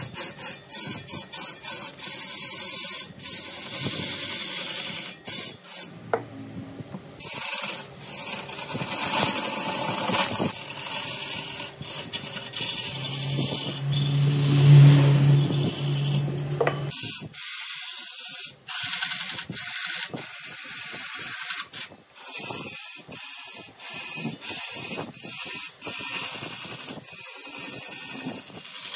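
Turning tools cutting and scraping wood spinning on a large wood lathe: a rough, hissing scrape that changes abruptly many times. A steady low hum joins for a few seconds around the middle.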